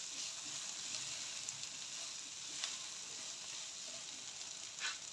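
Onion and ground spices frying in oil in a pan: a steady sizzle, with a couple of light clicks about halfway through and near the end.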